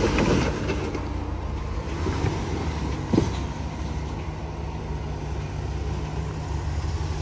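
Off-road rig's engine running steadily at low revs while crawling along a rocky trail, with one short knock about three seconds in.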